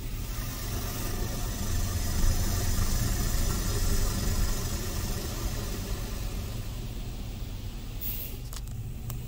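DDI Robowash touchless car wash running around the car, heard from inside the cabin: a steady low rumble with a hiss on top. It swells about two seconds in and then eases off slowly.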